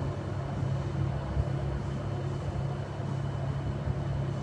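A steady low mechanical hum that does not change in pitch or level.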